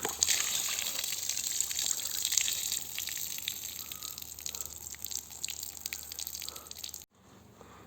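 Water pouring and splattering out of a Belarus MTZ-52 tractor's air intake filter: a steady splashing trickle with many small drips, which stops suddenly near the end. It is a sign of water that has got into the engine's intake.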